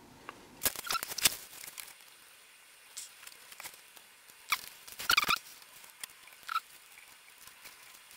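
Soldering wires onto an FPV drone's circuit board: a handful of short, irregular crackles and squeaky clicks, the loudest about a second in and around five seconds in.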